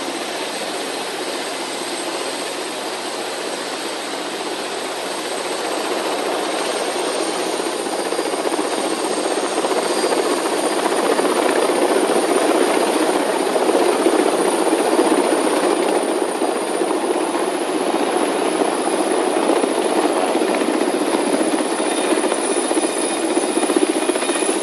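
A drone's propellers and motors running, a loud steady buzz with a thin high whine that slowly creeps up in pitch. It grows louder from about six seconds in and stays up.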